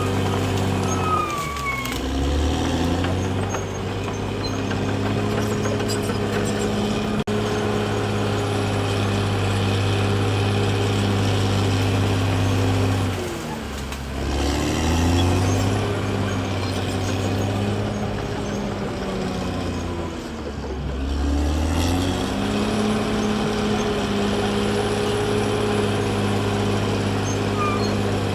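CAT D6R XL bulldozer's diesel engine running hard. Three times, about two seconds in, about thirteen seconds in and about twenty seconds in, its pitch drops sharply and climbs back up.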